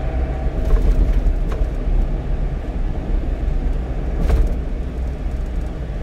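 1-ton truck driving on the expressway: a steady low rumble of engine and road noise.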